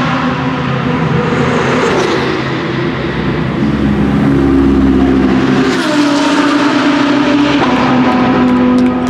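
BMW M6 GT3's twin-turbo V8 racing engine running hard, its note shifting in pitch in several steps as the car works through the gears.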